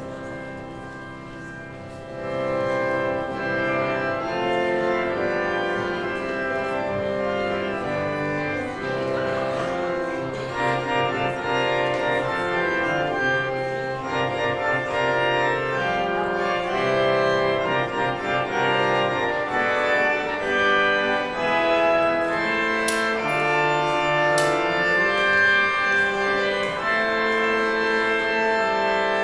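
Church organ playing the postlude after the dismissal: held chords over a slowly stepping bass, getting louder about two seconds in.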